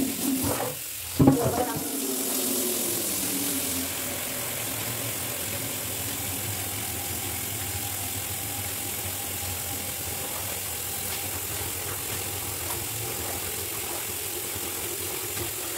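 Water running steadily from a tap into a laundry basin, an even hiss, starting just after a short knock about a second in. A woman speaks briefly at the very start.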